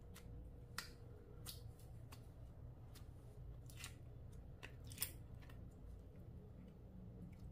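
Clear slime being worked by hand, giving irregular sharp clicks and crackles, the loudest about five seconds in.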